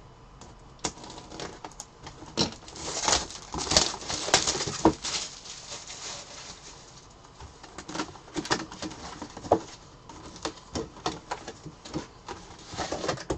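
A cardboard collectibles box being handled and opened by hand: a run of short scrapes, taps and rustles of cardboard and packaging, busiest about three to five seconds in and again near the end.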